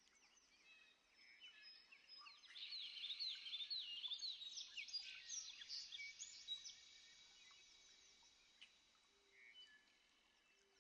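Birds chirping and singing, many short quick calls overlapping, busiest and loudest in the middle, with a thin steady high note running under them.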